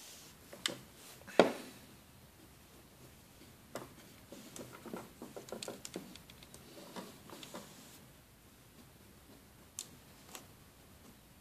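Plastic clicks and rattles from handling a KF-168 electronic fishing hook tier while its clamp is pressed and line is threaded: one sharp click about a second and a half in, a run of small irregular clicks in the middle, and two single clicks near the end. The motor is not running.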